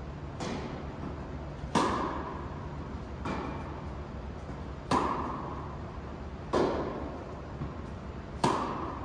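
A singles tennis rally on a hard court: sharp pops of racket and ball about every second and a half, some loud and close, others fainter from the far end, each with a short echo in the indoor hall.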